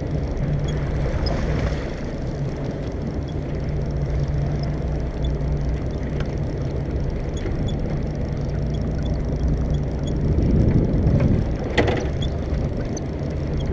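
Fishing boat's engine running steadily with a low hum, growing louder for a second or so about ten seconds in, with a sharp knock near the end.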